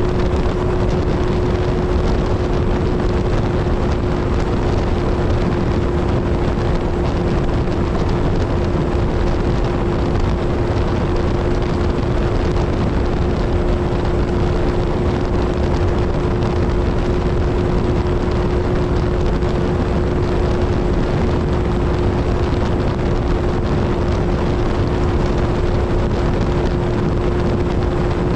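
Kawasaki Z1000's inline-four engine and exhaust at a steady highway cruise, its note holding one constant pitch, under a heavy rush of wind and road noise.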